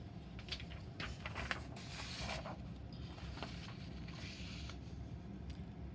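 Paper sheets handled and slid across a desk while a new worksheet page is laid down: a few sharp clicks and taps in the first second and a half, a brief rustle about two seconds in, then a softer sliding rustle.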